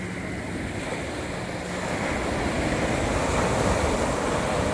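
Surf on a sandy beach: a small wave breaks and washes up the sand, its rush swelling about two seconds in and loudest near the end, with wind rumbling on the microphone.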